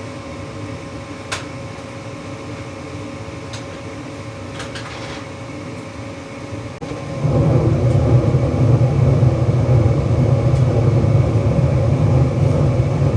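Gas furnace starting up with a newly replaced hot-surface igniter: the draft inducer motor hums steadily, a click sounds about a second in, and about seven seconds in the burners light with a sudden, louder, low rushing sound that then holds steady, showing that the new igniter has lit the gas.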